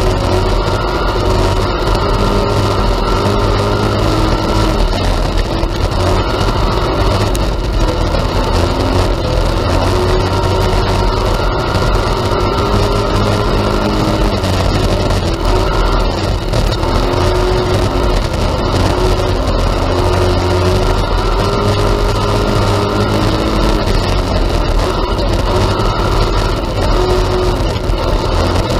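IMCA Hobby Stock race car engine at racing speed, heard loud from inside the cockpit. Its pitch rises and falls as the car runs through the turns and down the straights.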